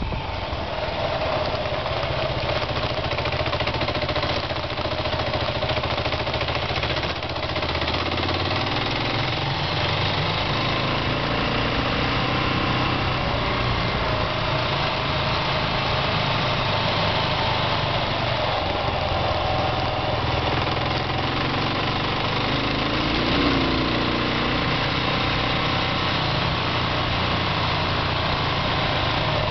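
Kawasaki KLR650's single-cylinder four-stroke engine running steadily while the bike is ridden along a gravel road. The engine note shifts about eight seconds in.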